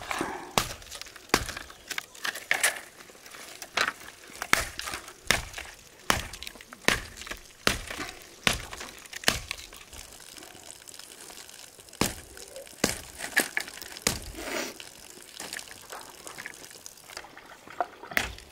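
Green bamboo poles being chopped and split on a wooden block, a sharp cracking strike about every half to three-quarters of a second, with a brief lull near the middle.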